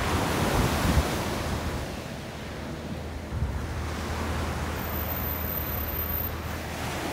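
Sea waves washing onto a stony shore, with wind rumbling on the microphone; the surge is loudest in the first second or so.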